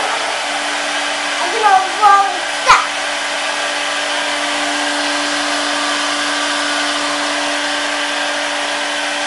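Hair dryer running steadily, pointed upward: an even rush of air over a constant motor hum. About two seconds in there are a few short vocal sounds from a child, then a single sharp knock.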